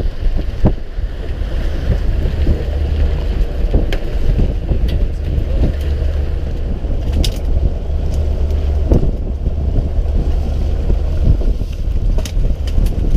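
Fishing boat at sea with wind buffeting the microphone over a steady low rumble, broken by a few sharp knocks.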